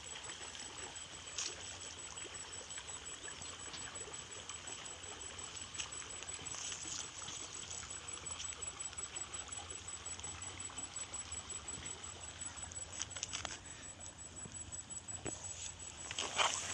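Water trickling steadily in a small stream, with a few faint clicks and a louder rustle near the end.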